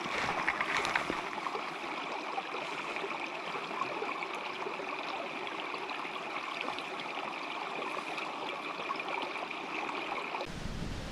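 Small brook running and gurgling steadily over rocks. Just before the end it gives way abruptly to music with guitar and bass.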